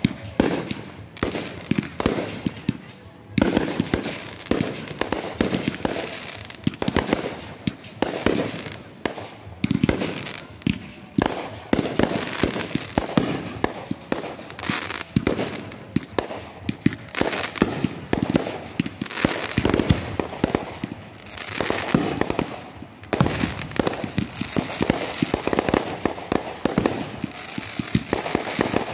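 Aerial fireworks going off one after another: a dense, unbroken string of sharp bangs and pops, many shots overlapping.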